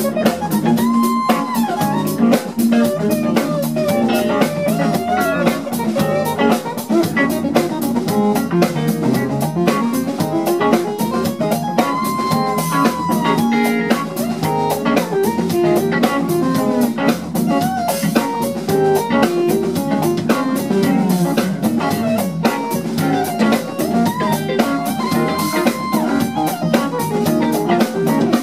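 Live funk band playing an instrumental groove: electric guitars over a busy drum kit with percussion and keyboards. A few long lead notes are held and bent, about a second in, near the middle and near the end.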